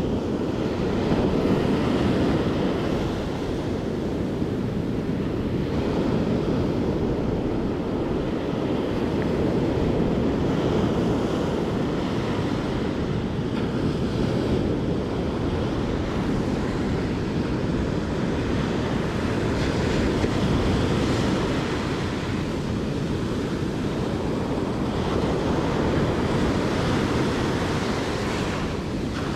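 Ocean surf breaking and washing up the beach, with wind buffeting the microphone: a steady rushing that swells and eases.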